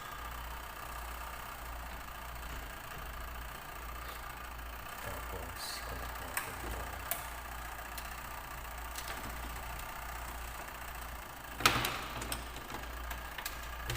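Steady low electrical hum with a few light clicks, then a sharper knock near the end, as a washing machine's timer switch and its wires are handled during a timer swap.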